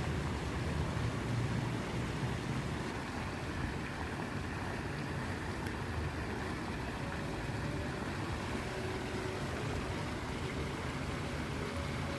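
Steady rushing noise of a waterfall, even and unbroken, with most of its weight low down.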